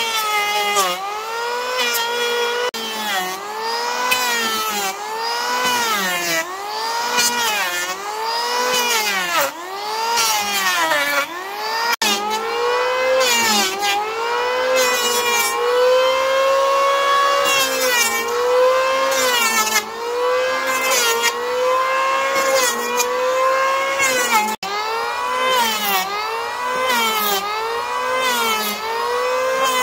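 Hand saw cutting through wood in steady back-and-forth strokes, about one a second. The rasp of the teeth rises and falls in pitch with each stroke.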